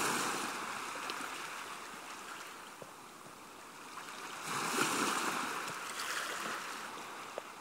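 Sea water washing and rushing, swelling at the start and again about four and a half seconds in, then fading away.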